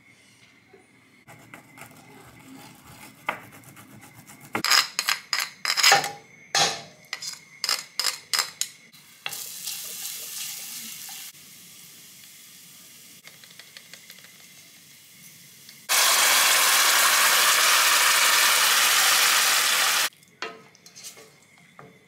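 Making a tomato pasta sauce in a stainless steel pan on the hob: a quick run of sharp knocks and clatters, then frying sizzle. A loud, steady sizzle comes about two-thirds of the way through, lasts about four seconds and stops suddenly.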